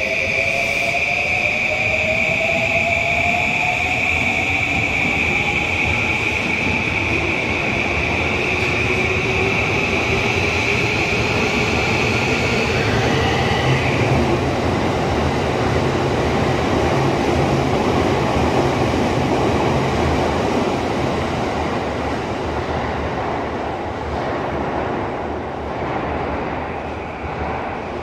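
JR E235 series electric multiple unit pulling out of an underground station. Its traction motor whine rises in pitch as it gathers speed over the running rumble of the wheels. A steady high whine stops about halfway, and the rumble fades away near the end as the train leaves.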